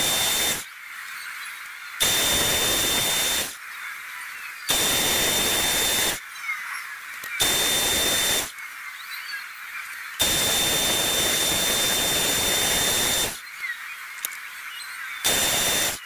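Metal lathe drilling a brass rod, giving bursts of hissing one to three seconds long, each with a steady high whistle in it, about six times, with quieter running between them.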